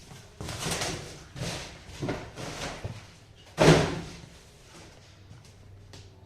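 Cardboard monitor box being handled: a few scrapes and rustles, then a loud thump about three and a half seconds in.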